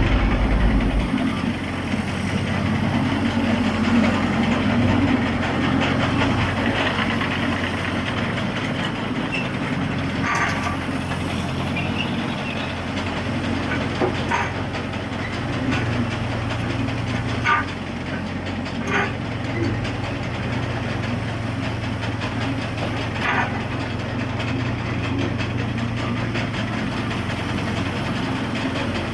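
SH40 excavator's diesel engine running steadily, its note shifting up and down a few times as the machine works. A handful of sharp knocks come through partway in.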